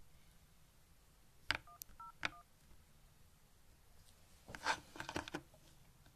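Phone keypad dialing: three short two-tone beeps, whose tone pairs spell 1-0-1, the UK police non-emergency number, with taps on the handset. A few seconds later comes a cluster of clicks and rustling from the phone being handled.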